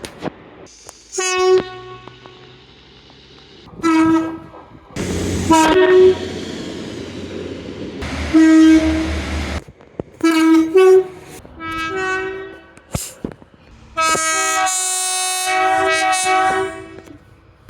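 A string of train horn and whistle blasts, short and longer, with abrupt starts and stops between them. The longest comes near the end and sounds several notes at once as a chord.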